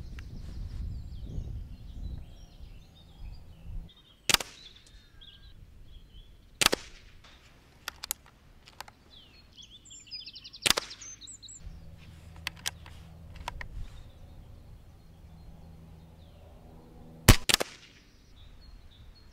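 BSA Scorpion SE .22 pre-charged pneumatic air rifle firing pellets: four sharp shots a few seconds apart, with fainter clicks between them.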